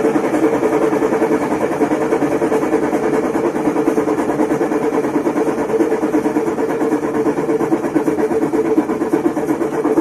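Mabe top-load washing machine on its spin cycle, its damaged transmission making a very loud, steady mechanical noise. The transmission's bearings have been ruined by water leaking from the tub into the transmission.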